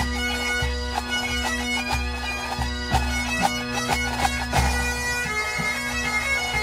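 Full pipe band playing: Great Highland bagpipes sounding a quick melody over steady, unbroken drones, with snare drums and a bass drum beating a regular rhythm underneath.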